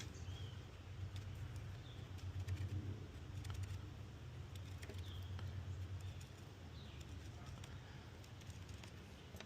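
Faint outdoor background: a low, wavering rumble with scattered light clicks and a few brief bird chirps.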